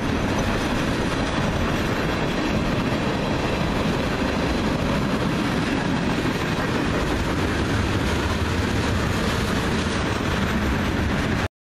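Freight train's tank cars and covered hoppers rolling past at close range: a steady rumble of steel wheels on rail. The sound cuts off abruptly near the end.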